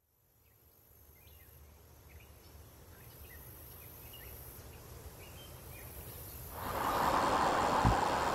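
Outdoor ambience fading in: a low rumble with faint bird chirps and a high hiss. About six and a half seconds in, a loud rushing road noise of something moving fast over asphalt comes in, with one low thump near the end.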